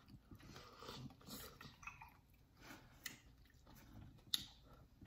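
Faint chewing and mouth sounds of eating boiled corn on the cob, with a few sharp clicks, the sharpest about four seconds in.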